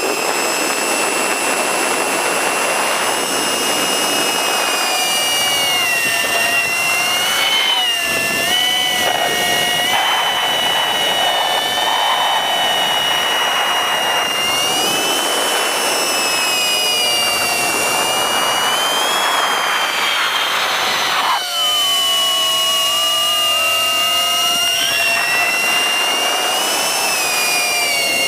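FPV racing quadcopter's brushless motors and propellers whining, several tones gliding up and down together as the throttle changes, over a rushing hiss of propeller wash.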